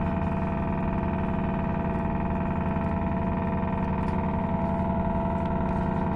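A ship's engine running steadily: a constant droning hum with a fine, rapid pulse underneath.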